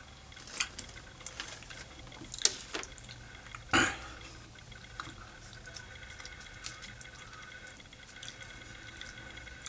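Close-miked eating sounds: wet mouth clicks and smacks of chewing, then fingers tearing naan and scooping chicken qorma. Sharp clicks come in the first four seconds, the loudest just under four seconds in, and grow sparser after.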